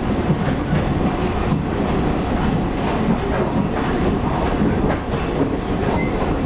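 Taiwan Railways local electric train running at speed between stations, heard from inside the passenger car: a steady rumble of wheels on the rails with light scattered clicks.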